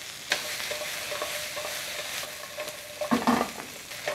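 Chicken and vegetables sizzling as they are stir-fried in a hot wok, stirred with a wooden spatula, with a louder clatter about three seconds in.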